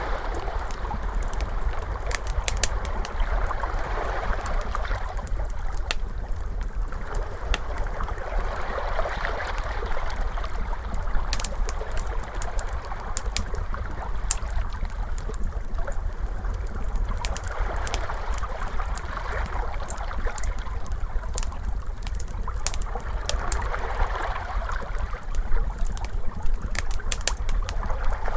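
Crackling fire with many sharp pops and snaps scattered throughout, over ocean waves that swell and fall back every several seconds, with a steady low rumble underneath.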